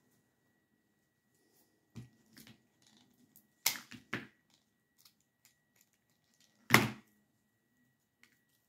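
A few sharp knocks and clicks of things being handled and set down on a craft table: one about two seconds in, a close pair around four seconds, and the loudest knock near seven seconds.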